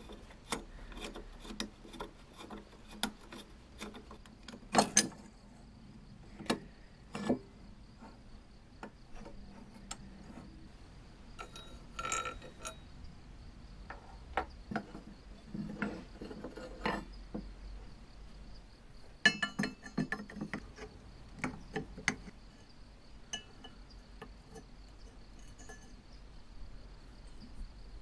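Screwdriver, rusty screw and cast-iron parts of a mechanical coin bank clicking and clinking as the bank is unscrewed and taken apart by hand. The clicks and knocks come scattered, with the loudest about five seconds in and a cluster around twenty seconds. A faint steady high whine runs underneath.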